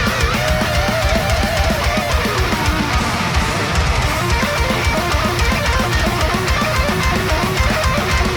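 Death metal music: distorted electric guitars play a melodic lead with vibrato over rapid, dense kick-drum hits.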